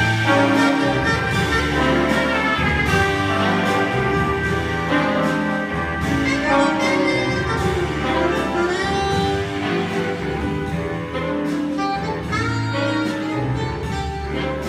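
Jazz big band playing, with saxophones and brass over piano and rhythm section.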